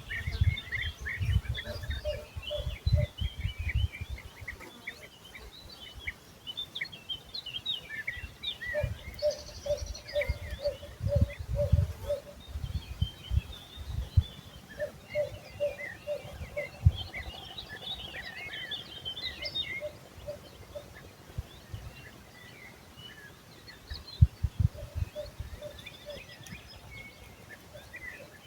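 Several songbirds singing and chirping, with a lower, rapid pulsed call repeated in short runs now and then. Gusts of wind buffet the microphone at times.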